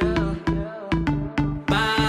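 An R&B/pop song playing in a sparse break: bass notes and sharp percussion hits with the singing paused, and the fuller beat and vocal return near the end.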